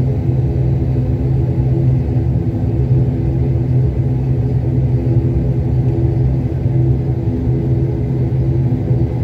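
Jet airliner cabin noise while taxiing: a steady low rumble with a constant hum from the engines at taxi power, heard from inside the cabin.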